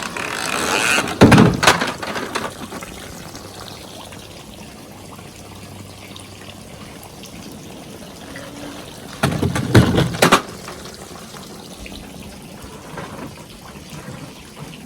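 Water from a sprinkler pool running steadily, broken by two loud bursts of splashing, about a second in and again about nine seconds in.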